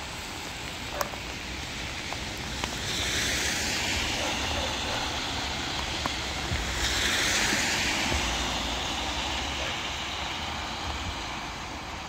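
Outdoor hiss with light wind rumbling on the microphone; the hiss swells twice, about three seconds and about seven seconds in, then settles.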